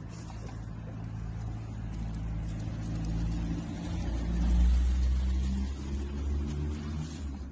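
Motor vehicle engine running: a low, steady hum that grows louder about four seconds in and eases off again.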